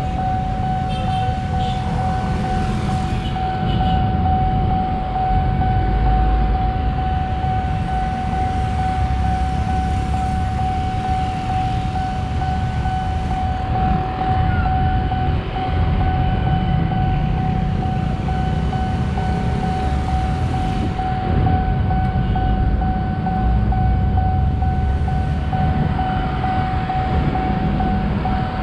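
Railway level-crossing warning alarm sounding one steady high tone without a break, over the low rumble of waiting motorcycles and road traffic while the crossing is closed for an approaching train.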